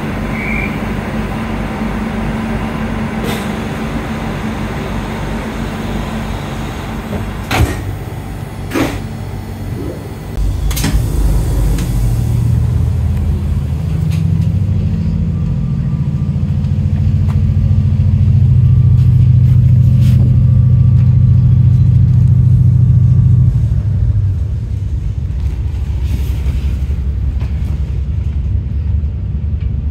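Endeavour diesel railcar's underfloor engine idling, with two sharp knocks about eight and nine seconds in as the doors shut. About ten seconds in the engine throttles up to pull away, growing louder for several seconds before easing back about twenty-four seconds in.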